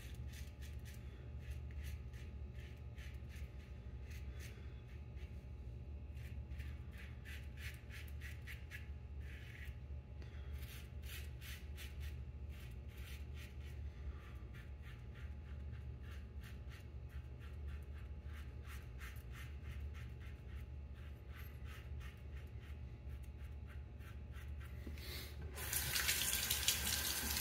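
Plastic double-edge safety razor (Dorco PL-602) scraping stubble through shaving lather in many short, faint, rasping strokes. Near the end a tap is turned on and water runs louder into the sink.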